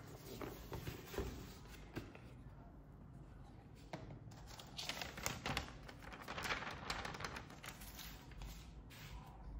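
Rigid cardboard gift box handled and its hinged lid opened, with a few taps and knocks, then a sheet of thin tissue paper rustling and crinkling as it is lifted off the contents, loudest about five to seven and a half seconds in.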